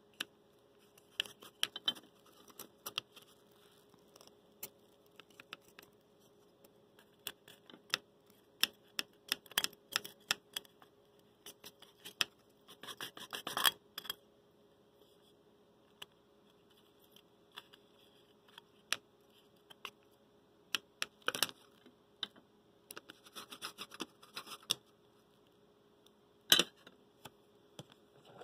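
Irregular small clicks, taps and scrapes of fingers handling a low-temperature-differential Stirling engine's parts: the thin displacer rod, the foam displacer and the clear plastic cylinder. A denser run of scraping and clicking comes about halfway through.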